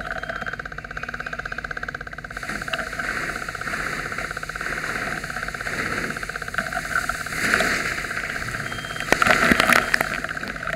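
An engine running steadily with a fast, even pulse. A burst of clattering knocks comes about nine seconds in.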